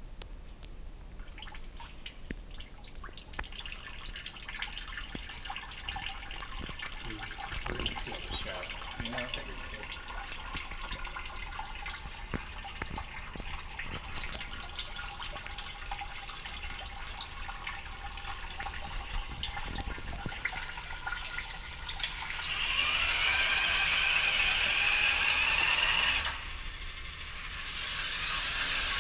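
Water trickling and dripping through a pump-fed sponge irrigation rig. Well past the middle a small electric motor whines up with a rising pitch, runs loudly for about four seconds and cuts off suddenly, then starts again near the end.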